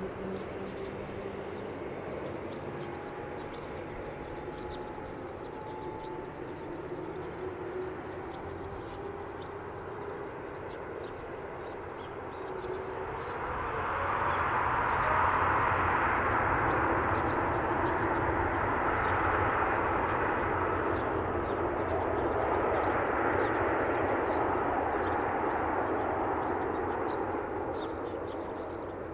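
Jet engines of a Boeing 747-8F freighter at takeoff: a steady drone with thin whining tones. About halfway through it swells much louder and stays loud, easing slightly near the end.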